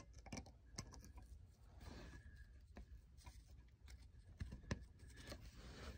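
Faint clicks and light rustling of insulated crimp spade connectors being handled and pushed onto a splitter on the ignition coil's negative terminal, a few scattered small clicks over near silence.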